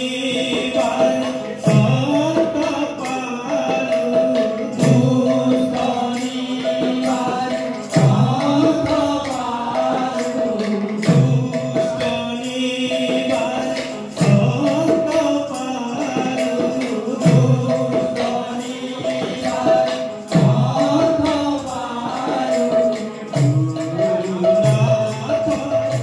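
Odia devotional kirtan music: a steady held tone over hand-drum strokes and jingling percussion, with chanted voices.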